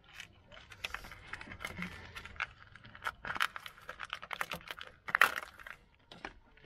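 Split corrugated plastic conduit on a car's wiring loom being pulled open by hand, a run of crackling, clicking and rustling with one louder snap about five seconds in.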